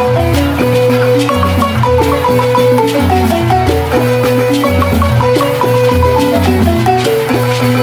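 Senufo balafons playing a fast, dense melody over a repeating deep bass pattern.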